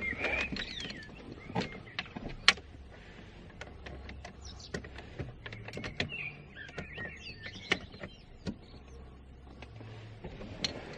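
Scattered clicks and knocks of plastic trim and parts under a VW Lupo's steering wheel being pushed and worked into line by hand, with a few high squeaky chirps.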